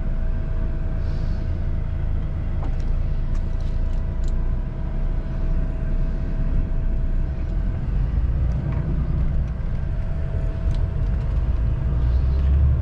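Truck's diesel engine running, heard from inside the cab as a steady low rumble with a thin steady tone over it.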